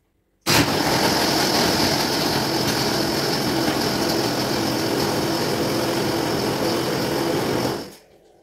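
Countertop blender running, blending ice cubes with milk into a frappé. It starts abruptly about half a second in, runs steadily, and stops near the end.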